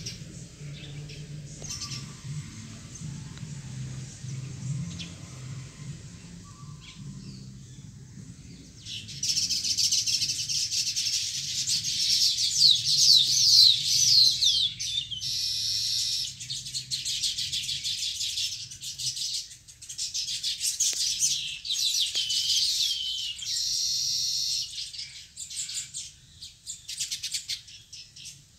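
A baya weaver colony chattering: faint high chirps at first, then from about nine seconds in a dense chorus of rapid chirps and quick sliding notes, thinning out near the end.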